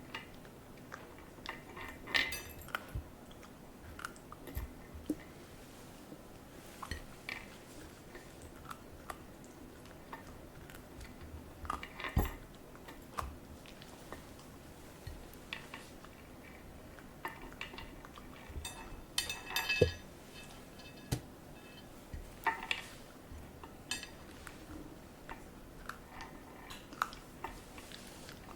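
Poodle chewing broccoli: irregular wet crunches and mouth clicks, with a few louder sharp clicks.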